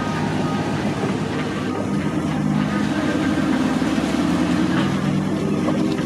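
A car engine running at low revs as a car pulls away. Its pitch steps up slightly about two seconds in and again near the end.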